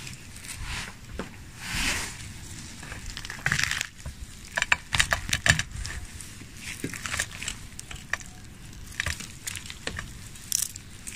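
Hands tearing apart a roasted guinea fowl: crisp skin and meat crackling and ripping in short bursts, with a quick run of sharp snaps about five seconds in.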